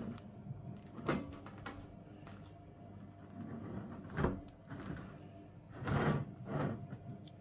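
A hand handling a round crusty loaf on a wire cooling rack: the crust scrapes and crackles under the fingers as the loaf is turned. There are four short scrapes: about a second in, around four seconds, and two close together near the end.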